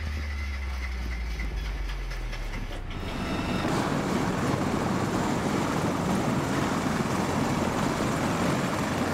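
A steady low engine hum from a portable ground heater unit. About three seconds in it cuts to a louder, even rushing noise from a CH-53 helicopter running on the ground, its turbines and rotors turning.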